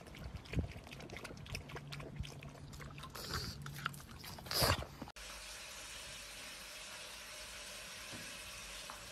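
Pug splashing and pawing in a stainless steel water bowl: water sloshing with many short splashes and clinks, and a louder burst about four and a half seconds in. Then a sudden cut to a steady hiss for the rest.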